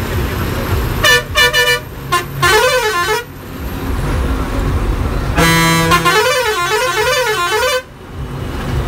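A bus's multi-tone horn: a few quick toots about a second in, a short warbling tone a moment later, then a longer warbling blast whose pitch swings up and down, from about halfway to near the end. Underneath, the bus's engine and road noise run steadily.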